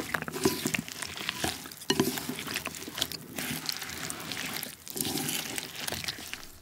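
Chopsticks stirring a bowl of saucy wheat rice-cake tteokbokki and chopped scallions: wet, crackly stirring of rice cakes in thick sauce, in several strokes with short pauses between them.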